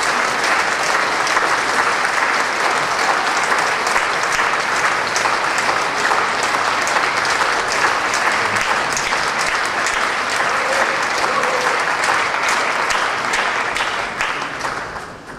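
Large theatre audience applauding for the dancers' bows: dense, steady clapping that dies away near the end.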